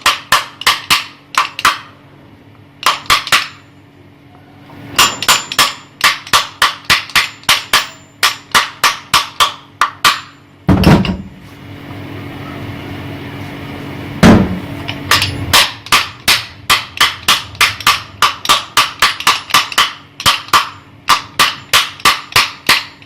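Runs of quick, light hammer taps on the metal housing of an exhaust fan motor, about four a second, seating the oiled upper part back in place. Two heavier blows land in the middle.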